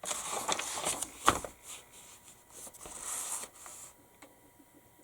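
Paper rustling and crackling as a model kit's instruction sheets are handled and turned, with a sharp crackle about a second in and a softer rustle near three seconds, then quiet.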